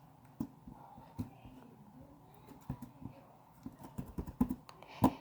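Sticky Play-Doh slime being kneaded and pulled by hand, making irregular small clicks and pops that come faster and louder near the end.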